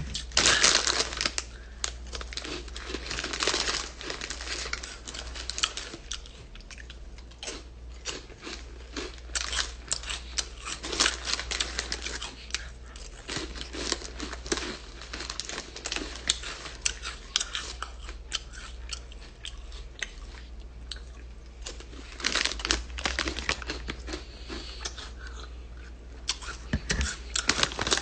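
Crinkling and tearing of a plastic snack wrapper, handled close to the microphone, with chewing in between.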